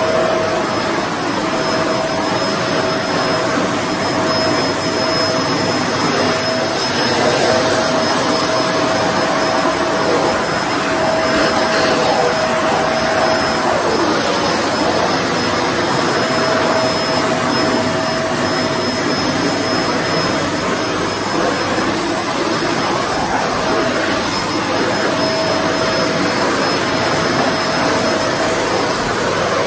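Kmart 2000 W canister vacuum cleaner running steadily, its floor head pushed over a shaggy rug: a loud, even rush of air with a mid-pitched hum that fades in and out and a faint high whine.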